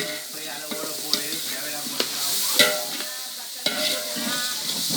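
A ladle stirring and scraping through frying chicken curry in a pot, with a steady sizzle and several sharp knocks of the ladle against the pot.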